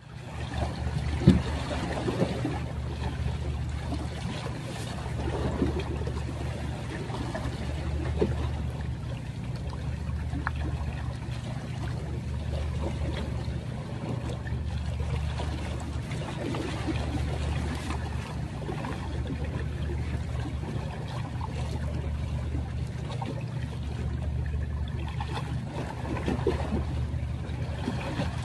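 Small sea waves lapping and trickling against shoreline rocks, over a steady low hum whose lowest part swells and fades about every two seconds.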